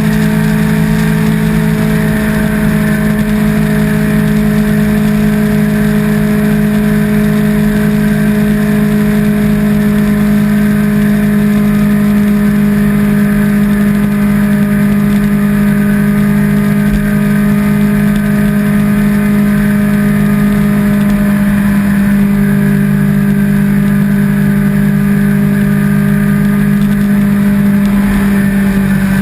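Sport motorcycle engine running at a steady cruise, its drone holding a nearly constant pitch, over a steady rush of noise.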